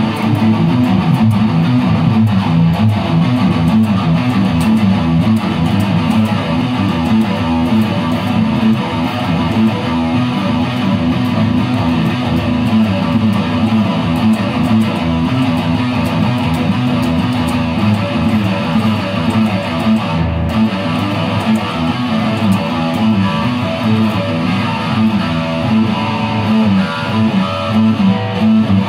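Electric guitar playing a fast metal riff, with a momentary break about twenty seconds in.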